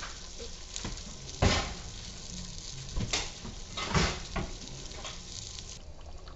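Sauce sizzling in a pot on the stove, with about four sharp clanks of a utensil against cookware. The sizzle thins out near the end.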